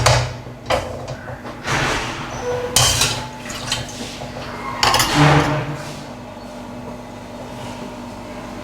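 Kitchen pots and utensils knocking and clattering, about five sharp clanks in the first five seconds, then a low steady hum.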